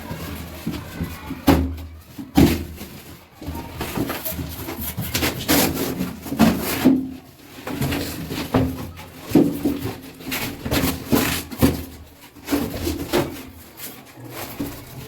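Irregular knocks, clunks and scraping of hands and tools at work while a flush toilet is being fitted.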